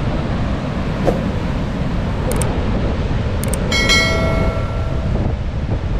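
Strong wind buffeting the microphone over the rumble of surf on a rough sea. A brief ringing tone sounds about four seconds in.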